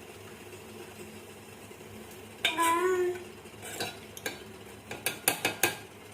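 A metal ladle stirring in a steel pot of boiling sambar: a loud, brief scrape with a wavering squeal, then a quick run of sharp taps of metal on metal.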